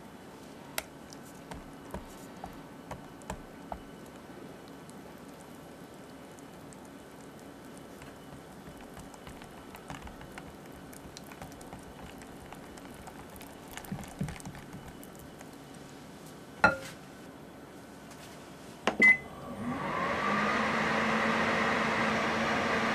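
A silicone whisk mixing avocado purée into cream cheese batter in a glass bowl, with quiet scraping and light clicks. Near the end there is a sharp click, then a short beep, and a microwave oven starts running with a steady hum.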